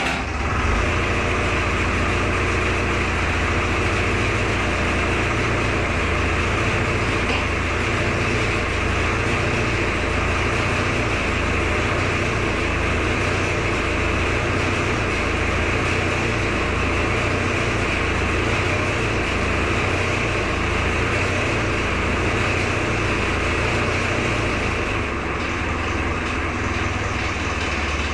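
Fiat-built diesel engine running steadily just after being started. It runs a little quieter near the end.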